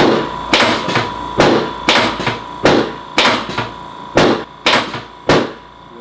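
A rapid series of about a dozen sharp knocks, unevenly spaced at roughly two a second, stopping shortly before the end.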